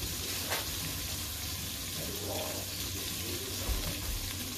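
Flour-dredged chicken pieces frying in hot oil in a pot, a steady sizzle. A brief knock about half a second in and a low thump near the end.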